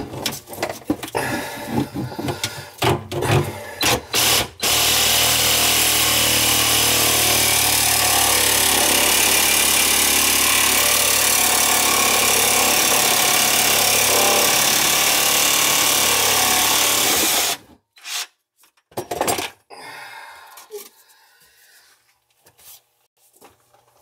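Cordless reciprocating saw cutting through PVC drain pipe: a few handling knocks, then about five seconds in the saw runs steadily for some thirteen seconds and cuts off suddenly.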